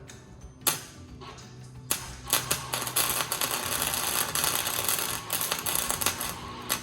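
Arc welding a bolt onto a steel door latch: a few short sputters as the arc strikes, then a steady crackle of the weld running for about four seconds before it cuts off abruptly near the end.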